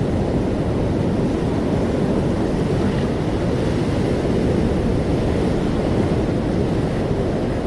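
Ocean waves and surf, a steady low rumbling wash with slight rises and falls in level.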